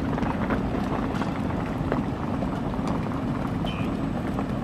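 Steady low hum of a stationary loco-hauled passenger train at the platform, with scattered light clicks of footsteps and rolling suitcases and a brief high squeak near the end.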